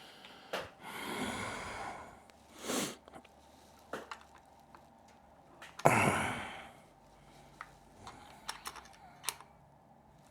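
Scattered light clicks and taps of hand tools and small metal parts being handled while a headlight mounting bolt on an electric bike is tightened, with a short breathy rush about six seconds in.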